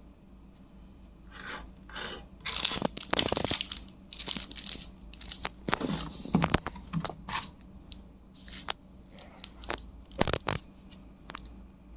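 Packaging being handled and opened: irregular crinkling and tearing of wrapping, with small sharp clicks, busiest in the first half and thinning out toward the end.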